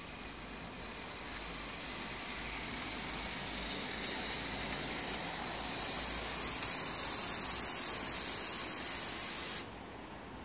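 Model tram's small electric motor and wheels running along the track, a steady high whirring hiss that cuts off abruptly near the end.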